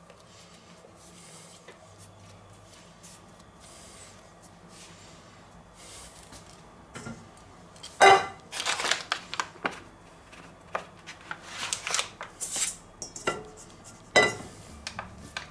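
Soft hand-kneading of dough, then from about eight seconds in a stainless steel mixing bowl clanking and knocking on a wooden board as it is set down and handled. The first knock is the loudest, and a run of lighter knocks follows over the next few seconds.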